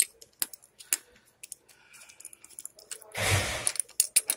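Scattered light clicks and clinks of small metal parts and tools being handled, with a short, loud scraping rustle about three seconds in.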